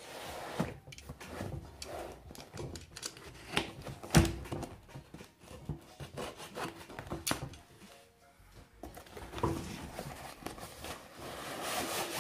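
Snap-off utility knife slicing through packing tape and corrugated cardboard, with scraping and rustling as the box is handled; a sharp knock about four seconds in.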